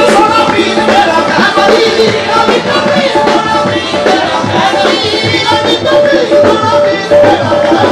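Qawwali ensemble playing an instrumental stretch: a harmonium carries the melody in held notes over fast hand-drum rhythm.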